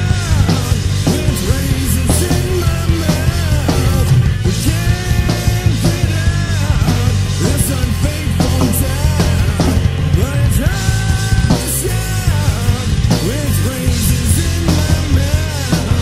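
Recorded grunge-style rock song playing loudly: a full band with drum kit, bass and electric guitars, and a melody line that slides and bends in pitch over the top.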